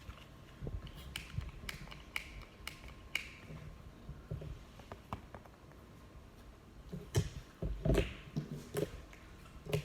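Slime being worked by hand, giving scattered sharp clicks and small sticky pops, with a louder cluster of clicks and knocks about seven seconds in.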